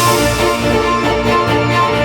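Electronic music with heavy boosted bass under a repeating high melody.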